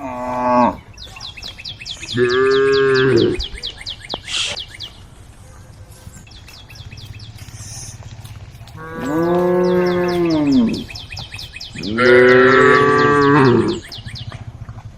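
Cows mooing: the tail of one call at the start, then three long calls of about one to two seconds each, the later two the longest and loudest.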